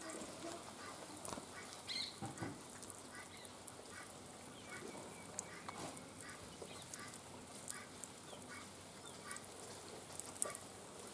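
Domestic fowl calling faintly, short notes repeated about twice a second, with scattered light clicks and one sharp click near the end.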